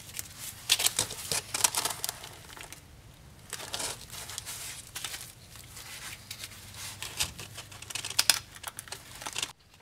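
Gloved hands handling a rusty steel strut top mount on a steel table: irregular rustling, scraping and light clicks, stopping abruptly near the end.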